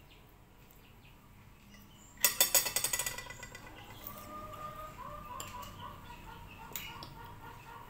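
A metal fork rattles and scrapes against a glass plate for about a second while spearing pineapple pieces. Faint, thin, wavering high chirping follows.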